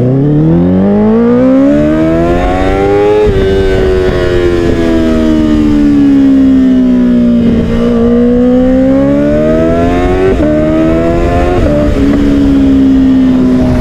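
Honda CBR motorcycle engine under way, its note climbing for about three seconds before an upshift. It then eases down for a few seconds and climbs again, with two more shifts near the end, and settles into a steady cruise.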